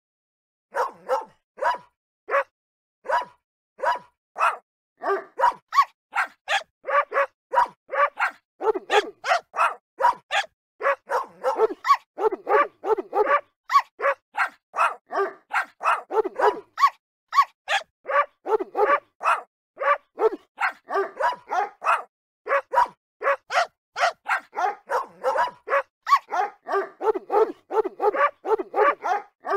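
Recorded dog barks from Google Search's dog easter egg, one short bark for each click of the paw button. They come about a second apart at first, then quickly turn faster and overlap into a dense run of barking.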